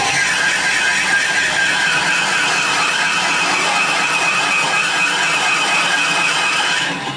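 Metal lathe turning a small engine crankshaft, running with a steady high-pitched squealing whine over a rapid rhythmic pulse.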